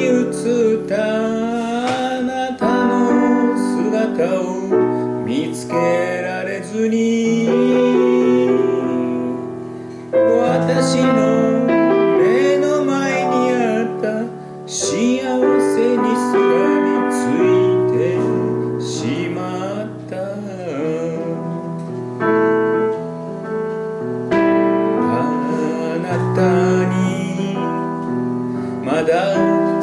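A woman singing a slow ballad into a microphone over piano chords.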